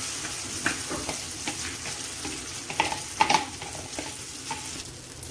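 Egg, tomato and onion mixture sizzling in hot mustard oil in a frying pan, a steady hiss. Several short clicks and scrapes come from the bowl being emptied over the pan, the loudest a little after three seconds in.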